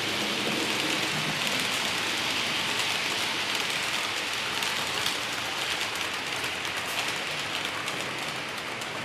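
HO-scale model passenger train rolling along model track: a steady hiss of metal wheels on the rails, speckled with a fine crackle of tiny clicks. It fades gradually over the last few seconds as the train moves away.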